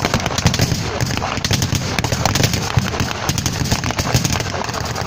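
Battle-reenactment small-arms fire with blank rounds: a dense, irregular crackle of overlapping shots, several a second, over a low rumble.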